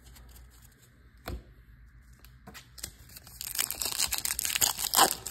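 A 2024 Bowman Baseball card pack's wrapper being torn open by hand, crinkling and tearing from about three seconds in. A single light tap comes about a second in.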